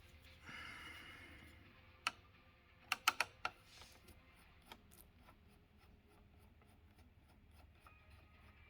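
Faint handling noises from work on a PlayStation 2 console: a brief rustle, then a few sharp clicks and taps, bunched together about three seconds in, with one more a little later.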